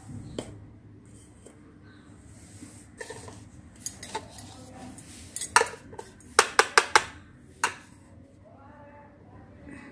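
Plastic toy cookware clicking and clattering as pieces are handled and set down on a tiled floor: a few scattered clicks, then a quick run of several clicks about six to seven seconds in.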